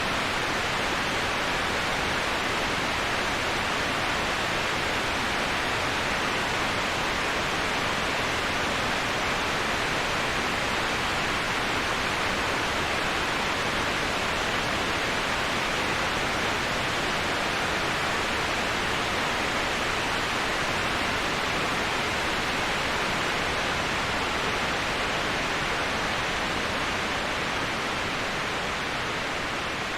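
Steady, even rush of a waterfall, used as a white-noise bed, easing slightly in loudness near the end.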